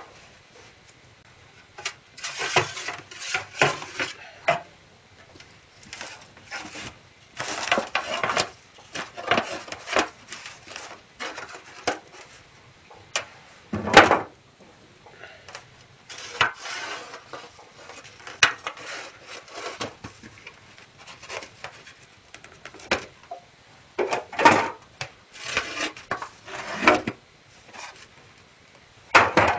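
Metal baking tins and a baking tray clattering and scraping against a cast-iron wood-fired oven as they are handled and pulled out, in irregular bursts of knocks and rubbing. One sharp metal clank about halfway through is the loudest.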